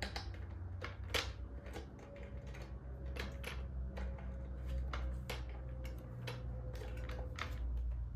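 Irregular small clicks and knocks of metal parts being handled as a bolt is fitted into the clamp of an angle-grinder cut-off stand, over a steady low hum.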